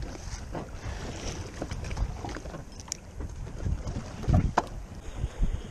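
Wind buffeting the microphone on an open boat, a gusty low rumble, with a few small knocks and a heavier thump about four seconds in.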